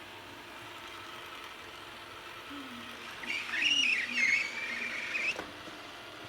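A small pet's high-pitched squeaking call with wavering, gliding pitch, lasting about two seconds from about three seconds in. It sounds over the steady whir of a running robot vacuum cleaner.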